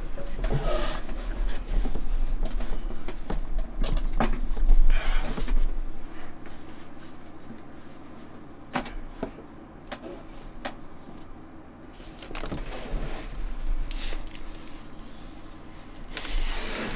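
Large cardboard shipping box being handled on a tabletop: irregular scraping and rustling with scattered light knocks and clicks, louder at the start and again as the box is lifted and turned near the end. A steady low hum runs underneath.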